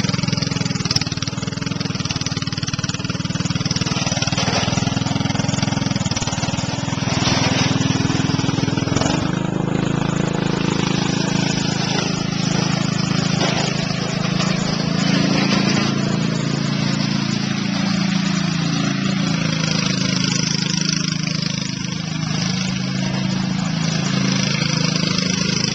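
Riding lawn mower's old 14 hp overhead-valve engine running with a shot muffler, loud and rough. Its speed shifts about nine seconds in and wavers up and down after that.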